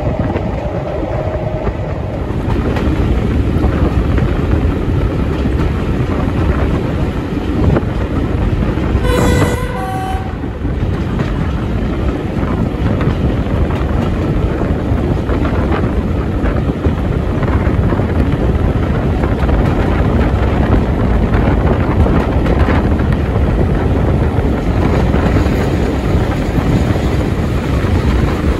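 Train carrying passengers behind Class 31 diesel locomotive 31128, running steadily along the line with continuous wheel and engine noise. About nine seconds in the locomotive's horn sounds once, briefly: a lower note followed by a higher one.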